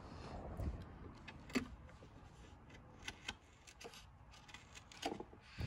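Bench chisel pushed by hand, paring wood out of a small pocket in a wooden window sash, giving scattered short scrapes and clicks of the steel edge on the wood, the sharpest about a second and a half in. The chisel is not as sharp as it could be.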